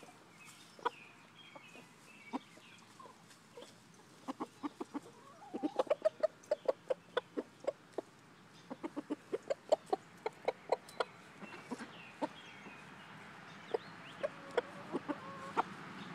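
Chickens clucking: short, sharp clucks that come in quick runs a few seconds in and again around the middle, with scattered single clucks in between.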